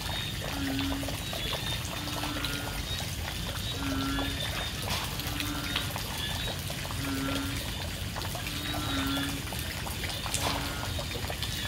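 Heavy rain pouring down with frogs calling. A low croak repeats about every one and a half seconds over fainter, higher croaks.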